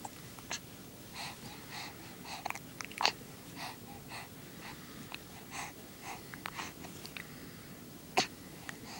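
A baby hiccupping: about three sharp little hiccups, the loudest near the end, with soft wheezy breaths and small sounds in between.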